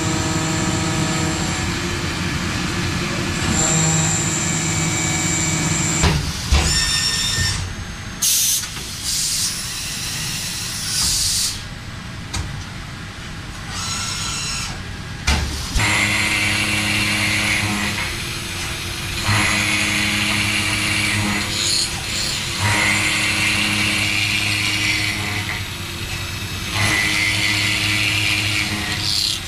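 WFL M60 CNC mill-turn machine cutting metal: steady spindle and cutting whines that change pitch between passes, with two rising whines. A loud hiss lasts a few seconds near the middle. From about halfway, a steady hum with a pulsing high cutting noise as a disc cutter mills a crankshaft.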